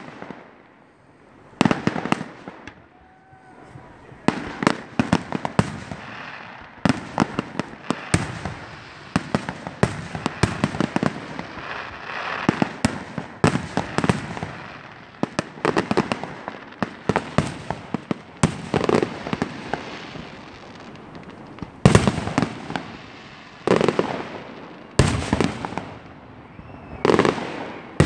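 Aerial fireworks display: shells bursting in a rapid run of bangs and crackles, with a few heavier booms in the last third.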